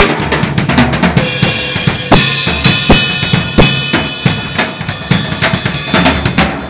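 Drum kit played in a sound check: bass drum and snare with cymbals ringing, a few hard accented hits about two to four seconds in.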